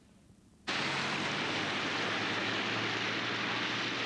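Near silence, then, under a second in, a steady hiss with a faint low hum cuts in abruptly and holds.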